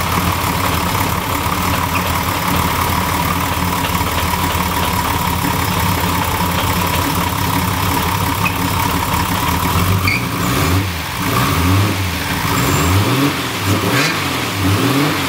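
Freshly rebuilt, turbocharged Holden 202 straight-six idling just after start-up with a lumpy, cammy idle and a steady high whine over it. From about ten seconds in the revs rise and fall several times as the throttle is blipped, with a slipping drive belt that the owner says needs retensioning.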